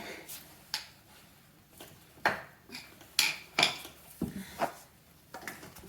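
Wooden baseboard pieces being handled and pressed into place at an inside corner: scattered sharp knocks and clicks of wood against wood and wall, with light rubbing between them.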